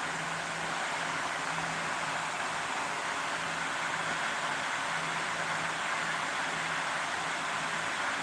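A fan running: a steady rushing noise with a low hum underneath that keeps dropping out for moments.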